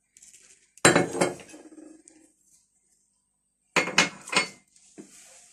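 A drinking glass and a plastic blender jug knocking and clinking on a granite countertop: a sharp clink about a second in with a second knock just after, then a quick cluster of three or four knocks near four seconds.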